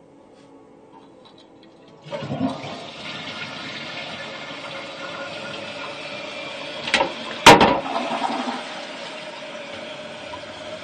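Toilet flushing, the rush of water starting suddenly about two seconds in and running on steadily. About seven seconds in come two sharp knocks half a second apart, the second the loudest.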